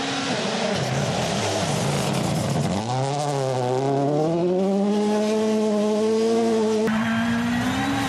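Toyota GR Yaris Rally1 rally car's turbocharged four-cylinder engine at full throttle on a gravel stage, with gravel spraying from the tyres. About three seconds in, the engine note climbs and then holds high as the car powers past, and the sound changes abruptly near the end.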